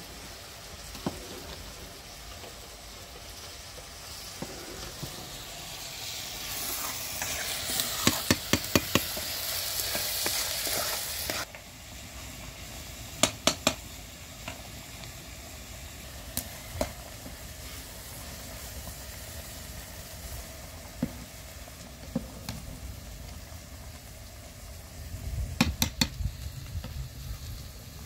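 Food frying in a pan over a wood fire, sizzling, while a metal spatula stirs it, clinking and scraping against the pan in short clusters. The sizzle swells loudest for a few seconds near the middle, then drops off suddenly.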